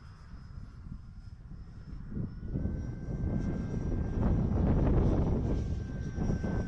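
High, steady whine of a small 50mm electric ducted-fan RC jet in flight. Gusty wind buffets the microphone with a low rumble that swells to its loudest about two-thirds of the way through.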